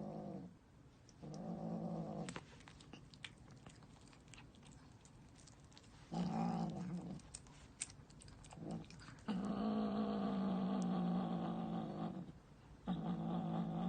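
A domestic cat growling in long, level-pitched growls, four in a row, the longest about three seconds. Scattered sharp clicks come in the gaps between them.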